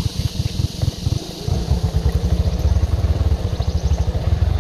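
Dirt motorcycle's engine running at low revs, a fast steady low putter, picking up a little about a second and a half in as the bike rides along a rough dirt trail.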